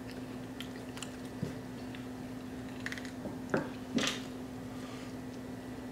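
Close-miked chewing and soft, wet mouth sounds of someone eating, with a few small clicks and two sharper ones about three and a half and four seconds in.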